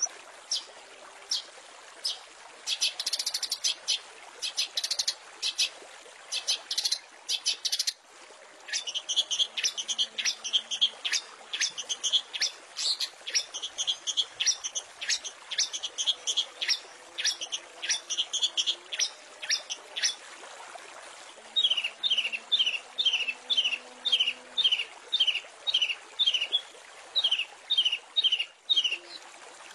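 Long-tailed shrike (cendet) singing in fast runs of short, sharp, high notes. In the latter part it gives a series of quick downward-slurred notes, about two to three a second.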